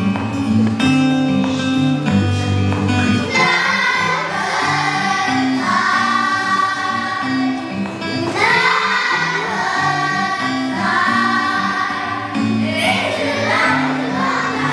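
A song sung by voices over strummed guitar chords; the singing comes in about three and a half seconds in, with long held notes.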